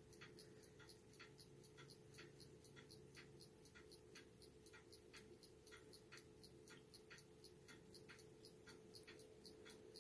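Faint, even ticking from a volcano-shaped aroma diffuser, a little over two ticks a second, over a faint steady hum from its small fan. The hum drops in pitch and stops right at the end.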